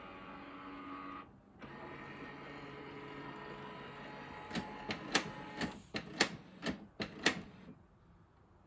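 Canon PIXMA TS3160 inkjet printer running its internal mechanism: a steady motor whir that briefly drops out, then a quick run of about seven sharp clacks before it goes quiet near the end.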